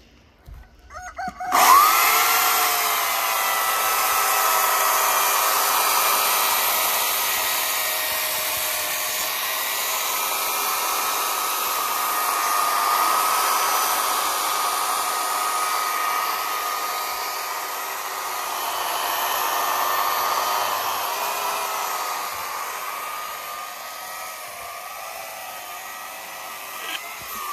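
Einhell GH-EC 2040 corded electric chainsaw starting up about a second and a half in and running as its chain cuts through a thick log, a steady high whine. Near the end the trigger is released and the motor winds down with a falling pitch.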